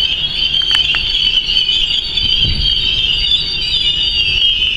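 Steel wheels of an ÖBB class 1216 Taurus electric locomotive squealing loudly as it creeps through the station tracks: one steady high squeal, with a few sharp clicks and a low thud about two and a half seconds in.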